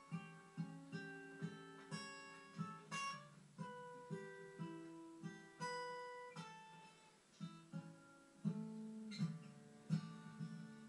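Background music: an acoustic guitar picking and strumming chords in an even rhythm, with no singing yet.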